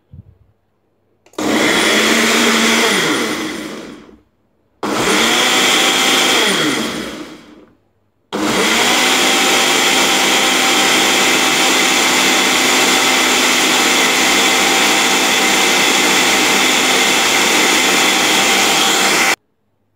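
Ninja blender liquidising chopped fruit and vegetables with a little water: two short bursts that wind down as they stop, then a long steady run of about eleven seconds that cuts off suddenly.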